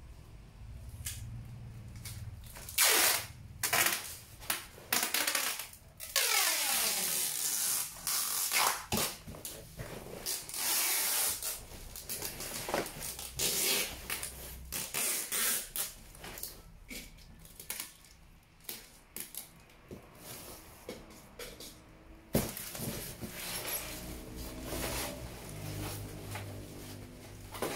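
Handling noise: irregular clicks and knocks mixed with bursts of rustling or hissing noise lasting a second or two each, with a few brief pitched tones near the end.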